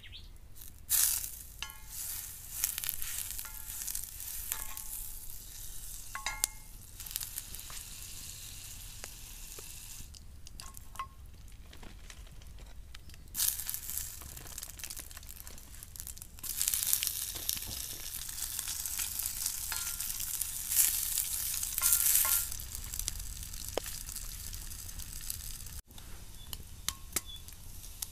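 Food frying in a pan, its sizzle swelling and fading in bursts, with a few short bird chirps.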